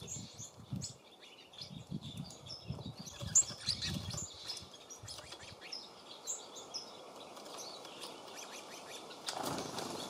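Small songbirds at a feeder chirping in many short, high calls, mixed with low gusty thumps and a brief rustling burst near the end.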